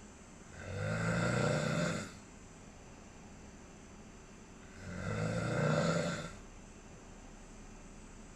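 Snoring: two long snores about four seconds apart, each lasting about a second and a half.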